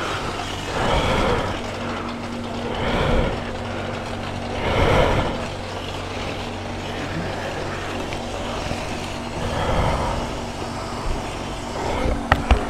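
A motorcycle engine running steadily, with noise swelling and fading several times, as from passing traffic or wind, and a couple of sharp clicks near the end.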